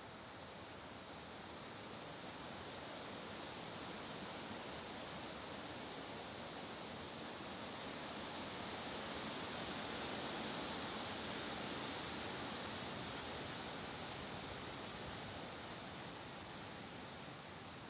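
Wind blowing, a steady rushing hiss that swells to its loudest about ten to twelve seconds in and then eases off.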